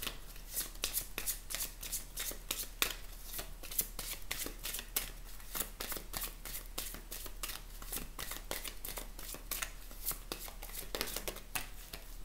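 A deck of oracle cards being shuffled by hand: a quick, irregular run of light card-on-card flicks and slaps, several a second.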